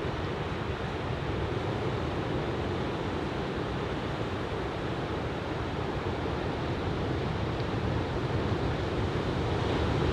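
Steady rush of breaking ocean surf from a typhoon swell, with wind on the microphone, growing slightly louder near the end.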